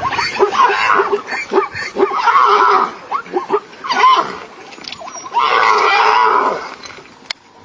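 A zebra crying out in distress under a predator's attack: repeated harsh, pitch-bending calls, with two longer squealing cries about two and six seconds in.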